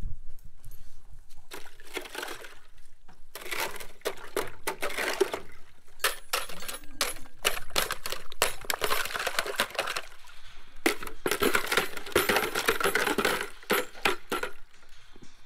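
Ice in a frozen livestock water bucket being broken up with a wooden stick: crunching and clinking of ice shards knocking together in the water, in several bouts of jabbing and stirring.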